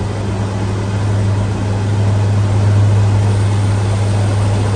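Steady low engine drone with a constant hum and a rushing noise over it, swelling slightly in the middle.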